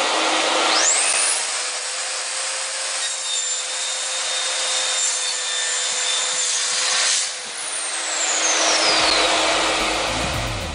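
Metabo KGS 254 I Plus mitre saw running and cutting, a dense, loud noise. A high whine rises about a second in, and another falls away from about seven and a half seconds.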